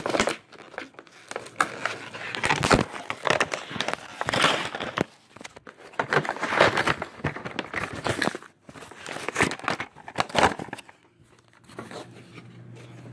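Plastic blister packaging on a toy's cardboard backing card being handled and worked at: irregular crinkling and crackling with sharp clicks, quieter for the last couple of seconds.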